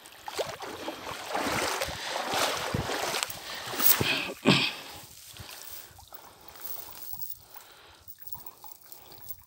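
Water streaming and dripping off a wet cast net as it is hauled out of the water, then a thud about four and a half seconds in as the net drops onto the grass, followed by quieter rustling of net and grass as the fish are picked out.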